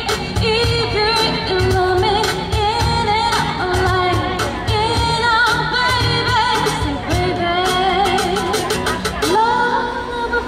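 Female singer performing a pop song live with a band, her voice over guitar and a drum kit keeping a steady beat.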